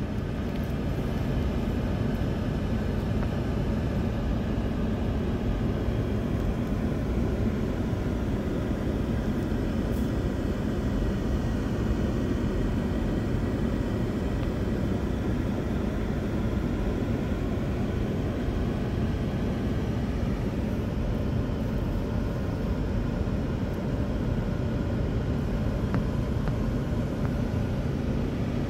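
Steady hum of a car driving along a street, heard from inside the cabin: engine and tyre noise, even throughout.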